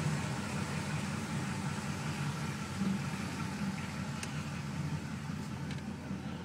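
LS1 5.7-litre V8 engine running with a misfire, a sputter that the owner suspects comes from a fouled spark plug, though no misfire code is set.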